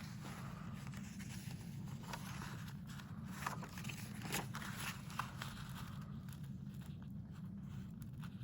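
Scissors cutting along the fold of a sheet of paper: scattered snips and paper crackles over a steady low hum.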